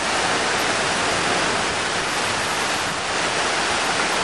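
Fountain water falling and splashing as a steady rush.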